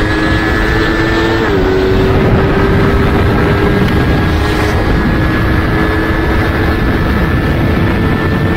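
Yamaha MT-25's 250 cc parallel-twin engine pulling at full throttle at high speed, its pitch stepping down once about a second and a half in and then climbing slowly, under heavy wind rush on the helmet microphone.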